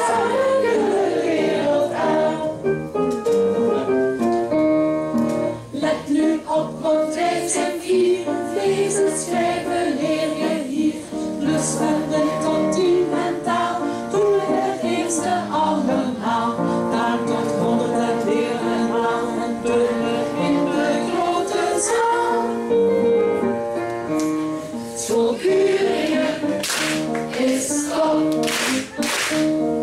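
Children's choir singing a school song in Dutch.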